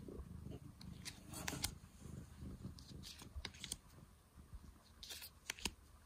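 Cardboard tarot cards being slid off a stack and laid down on a bedspread, giving soft scattered clicks and rustles. A cat purrs quietly underneath for the first couple of seconds.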